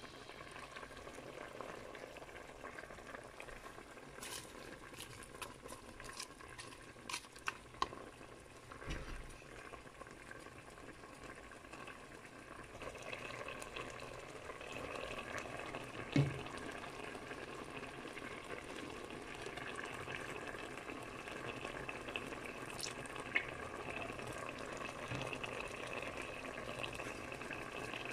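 Pot of chicken stewing in broth boiling gently on the stove: a faint steady bubbling that grows louder about halfway through. A few small clicks and one knock sound over it.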